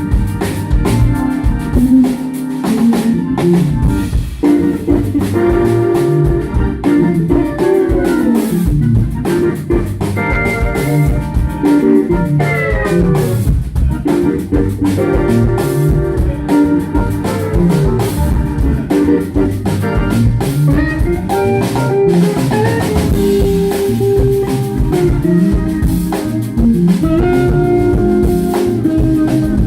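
Live band playing a jam on drum kit, bass and steel guitar. The steel guitar's notes slide up and down in pitch several times.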